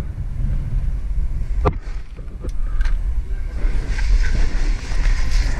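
Low rumbling wind and handling noise on a body-worn camera microphone, with three sharp clicks near the middle.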